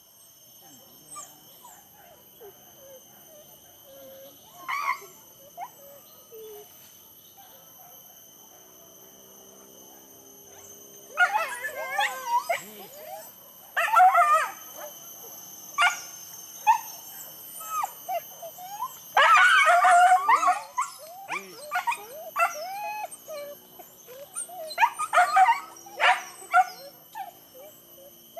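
Hunting dogs barking, yelping and howling. The calls start about a third of the way in and come in quick clusters, loudest about two-thirds through.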